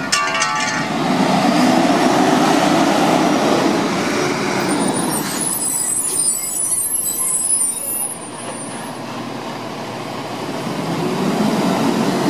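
A Lodal side-loading recycling truck's diesel engine running as the truck pulls up to the curb, its pitch rising and falling. About halfway through comes a high squeal lasting a few seconds as it stops. The engine then idles lower and speeds up again near the end.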